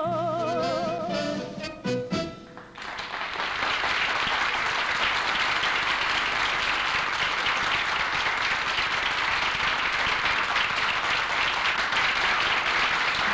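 A woman's final sung note, held with a wide vibrato, ends the song together with the band about two seconds in. A studio audience then applauds steadily.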